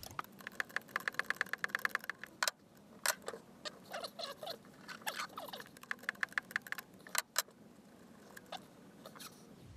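Ratcheting wrench clicking in two quick, even runs of about a dozen clicks a second, with a few separate sharp metal clinks between them, as nuts on a marine transmission's prop-shaft coupler are turned.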